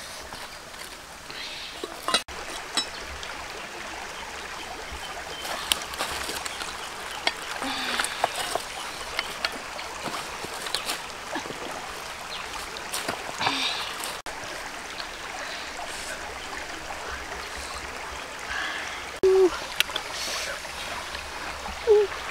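Steady rushing of flowing water, like a trickling stream, with scattered light clicks. Two brief louder knocks come near the end.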